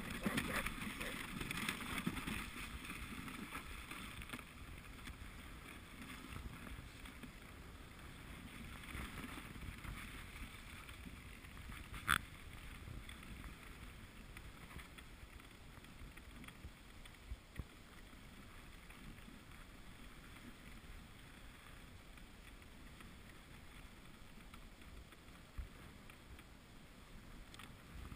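Wooden dog sled gliding over packed snow: its runners hiss and scrape steadily, with wind on the microphone, louder for the first few seconds. One sharp knock comes a little before halfway through.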